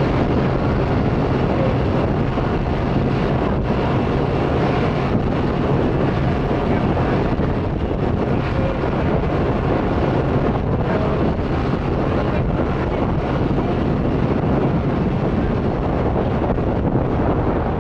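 Steady jet engine noise from a taxiing JetBlue Airbus A320, mixed with wind buffeting the microphone.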